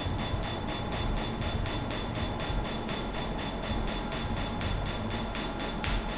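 Tattoo-removal laser firing a steady train of pulses: sharp snapping clicks at about five a second, over a faint steady high tone.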